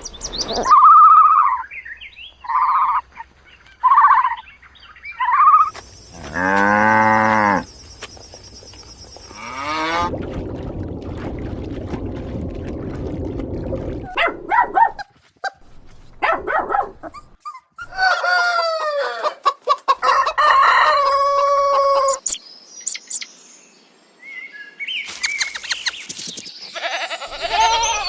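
A run of different farm animal calls, one clip after another, including a rooster crowing and chickens clucking.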